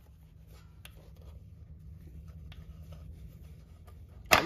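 Faint scraping and light clicks of a hand tool working at a motorcycle engine's side cover over a low steady hum, then one sharp metallic click near the end.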